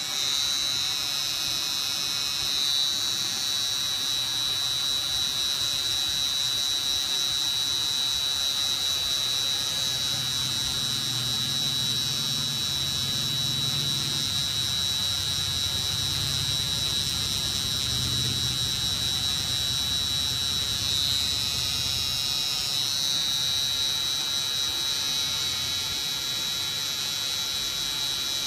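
Permanent-makeup tattoo machine pen running with a steady, high-pitched electric whine as it works an eyebrow tattoo.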